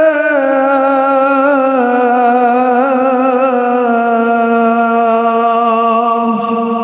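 A male muezzin singing the adhan (Islamic call to prayer), holding one long melismatic phrase: a sustained note that slowly steps down in pitch with wavering ornaments along the way.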